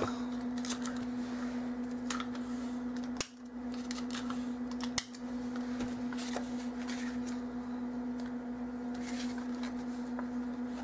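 Soft handling sounds of clear adhesive tape, ribbon and cardstock being picked up and pressed down: scattered faint clicks and rustles over a steady low hum, with two brief drop-outs about three and five seconds in.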